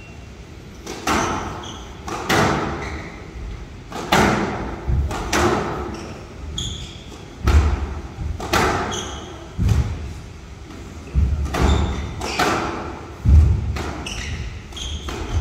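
A squash rally: the ball is struck sharply by racket and smacks off the court walls about once a second, each hit echoing in the hall, with brief high squeaks between the hits.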